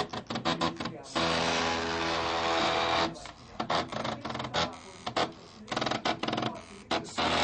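Stepper motors of a mini CNC built from DVD/CD drive parts: about a second in they run with a steady whine for around two seconds, and around that whine they step in short bursts of rapid ticks.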